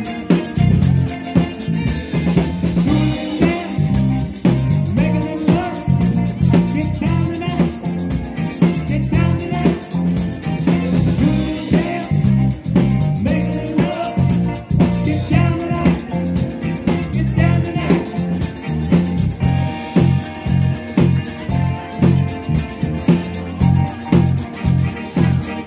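Live band playing an upbeat groove with drum kit, electric bass, electric guitar and keyboards, a steady pulsing bass line under repeated drum hits.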